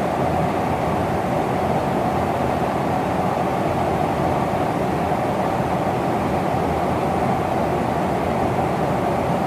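Steady in-flight noise of a KC-135 Stratotanker, engines and rushing air, heard from inside the tanker's boom operator station during aerial refueling. It drones on evenly with a hiss on top, no changes or separate events.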